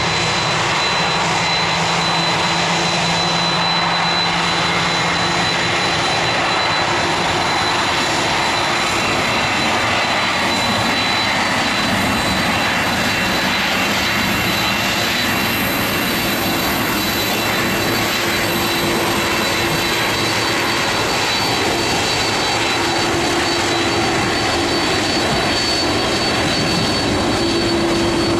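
Jet airliner engines running: a steady rush of noise with a thin high whine and a low hum that shifts pitch about halfway through.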